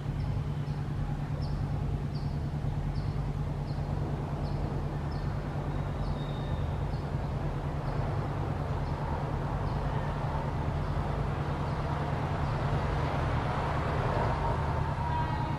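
WAG9 electric locomotive and its coaches approaching on the track: a steady low hum and rumble that grows louder near the end as the train draws closer.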